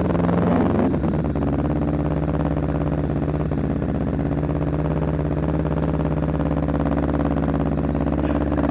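Motorcycle engine running steadily at low revs as the bike rolls slowly, a deep even drone whose pitch wavers briefly about a second in.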